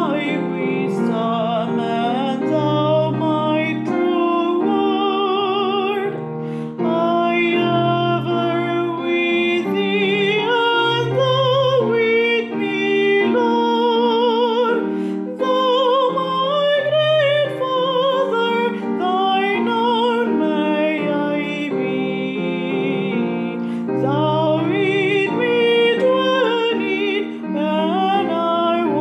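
A woman singing solo with strong vibrato over a piano accompaniment.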